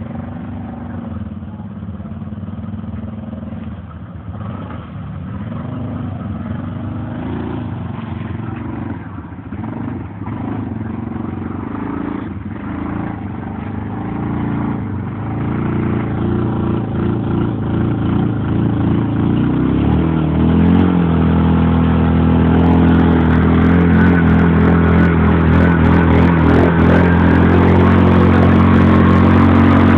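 ATV engine running, its pitch rising and falling as it is revved, and growing steadily louder. From about two-thirds of the way in it runs loud at high revs, with sharp clicks over it in the last several seconds.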